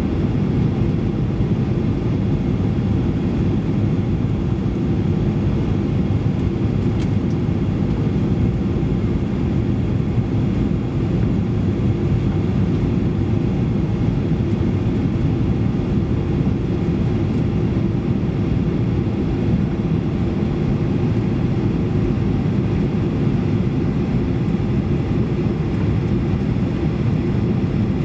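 Cabin noise inside a Boeing 737-800 on approach: its CFM56-7B turbofan engines and the rush of air over the airframe make a steady low drone.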